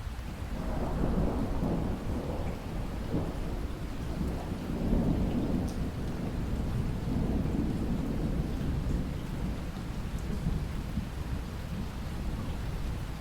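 Steady rainfall with a long roll of thunder that builds about half a second in, rumbles on through the middle and fades near the end.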